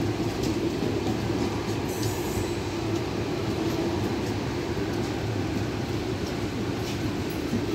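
Kerala Superfast Express coaches rolling on the rails, a steady rumble.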